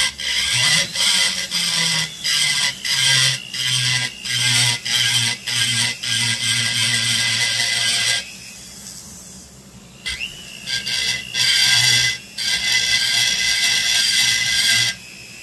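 A Foredom flexible-shaft rotary tool's burr grinds the soft crankcase of a vintage Homelite XL922 chainsaw in short repeated passes, trenching the case transfer passages to match enlarged ports. The motor hums steadily underneath, and the cutting pauses for about two seconds just past the middle.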